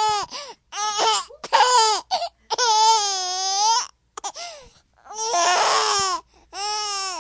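A baby's voice: a string of long, high-pitched, wavering squeals, each up to about a second and a half, with short breaks between. The one just before the end of the second third is rougher and screechier than the rest.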